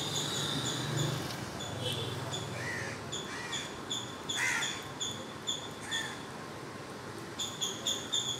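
Birds calling: a short high chirp repeated about two to three times a second, with a pause near the end, and a few short, harsh crow caws in between.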